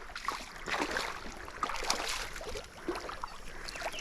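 Irregular splashing and sloshing in shallow river water as a big hooked catfish is brought in.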